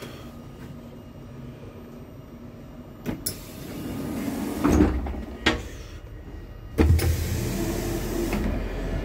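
Automatic sliding doors inside an intercity passenger coach working: clicks, a rising motor whir and thumps as the leaves move, then a sudden loud clunk about seven seconds in with a rush of hiss-like air noise, settling into a steady low hum.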